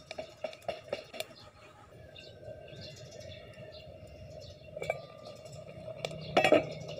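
Wood fire crackling under a covered aluminium cooking pot, with sharp pops in the first second or so. Near the end there is a short metallic clatter as the pot lid comes off.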